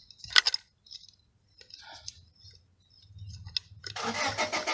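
Light metallic clicks and taps from metal tools and parts being handled, with a quick cluster of sharp clicks about a third of a second in. Near the end a rhythmic mechanical rattle starts up and grows louder.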